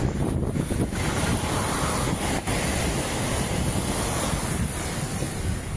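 Strong storm wind gusting around a tornado and buffeting the microphone: a steady, loud rush with low rumbling pops.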